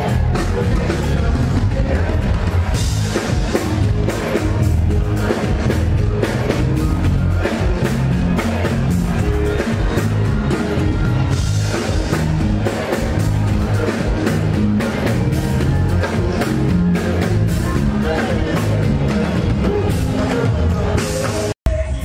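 Live Afrobeats concert music over a big stage PA, with a steady heavy bass beat. The sound drops out for an instant near the end.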